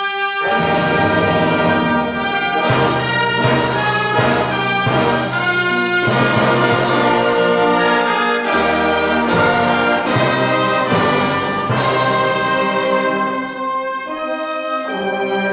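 Brass band of trumpets and trombones playing a hymn in full sustained chords, moving to a new chord roughly every second, easing off briefly near the end.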